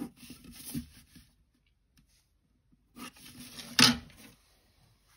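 Plastic drawing tools handled on paper: a set square slid and lifted off the sheet with a rustle, then a second bout of sliding with a sharp plastic clack about four seconds in as the isometric ellipse template is picked up and set down.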